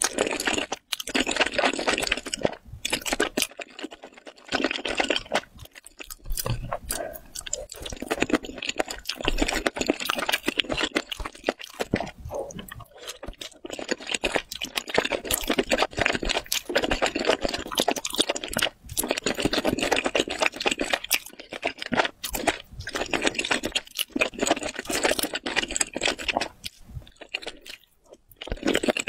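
Close-miked mouth sounds of a person eating saucy noodles and squid from a spicy stew: wet slurping and chewing in bursts of a few seconds with short pauses between.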